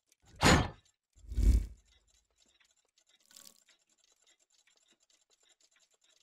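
Logo sound effects for a clockwork-gear emblem: two heavy swelling hits in the first two seconds and a softer one about three and a half seconds in. Faint, rapid mechanical ticking, like turning gears, runs underneath until just before the end.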